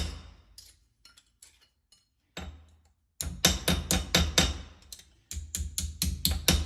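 Rapid hammer blows on sheet steel, about five a second, shaping a patch piece for a car's inner wheelhouse. The hammering stops early on for a couple of seconds, with only a few light taps and a single blow, then starts again, with a short break near the end.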